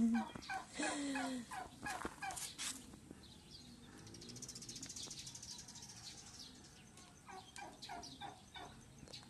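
Domestic fowl call: a low call with a falling pitch in the first second and a half, then small birds chirping on and off.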